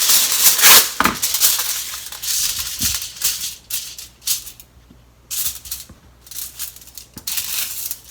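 Aluminium foil crinkling and rustling as it is handled, in a long stretch for about four seconds and then in short separate bursts.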